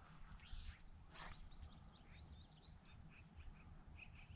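Near silence with faint birds chirping: a run of many short, high chirps over a low, steady rumble.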